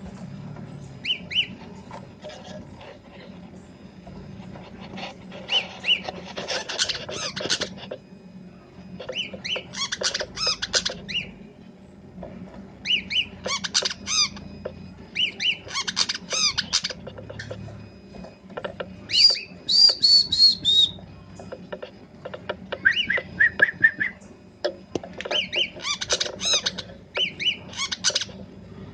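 Brown-throated sunbird singing in full voice: bursts of quick, high chirping and twittering phrases every two to three seconds. The phrases mix in its learned 'isian' repertoire, and a run of descending whistled notes comes a little past the middle.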